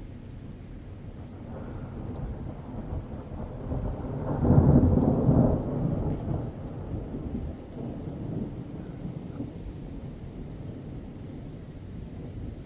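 A long roll of thunder. It builds over the first few seconds, is loudest about four and a half seconds in, then keeps rumbling low and slowly fades.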